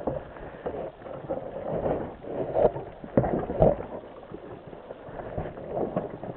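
Scattered knocks and scuffing from a dirt bike being handled among rocks, with no steady engine note.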